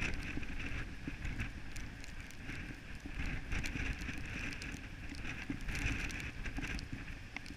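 Wind buffeting the microphone in gusts, with the hiss of surf breaking behind it.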